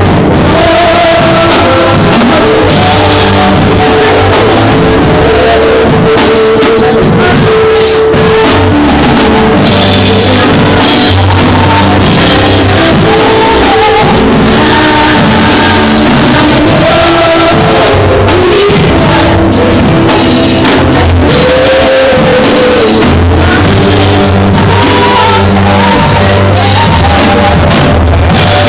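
A band playing a worship song with a drum kit and bass, and a voice singing over it.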